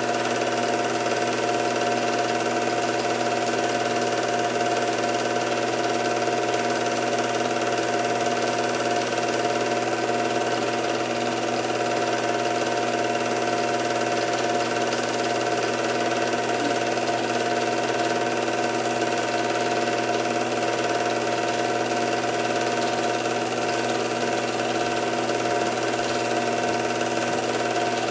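Film projector running, a steady mechanical whir that does not change.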